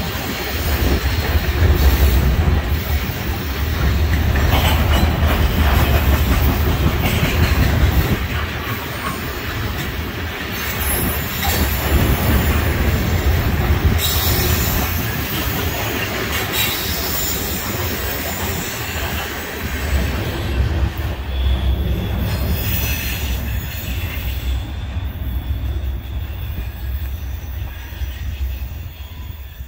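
Covered hopper cars of a freight train rolling past: a steady low rumble with clatter from the wheels on the rails, fading near the end as the last car moves away.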